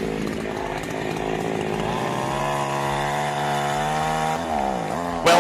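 Chainsaw engine revving up about two seconds in and holding at high revs, then its pitch drops sharply near the end.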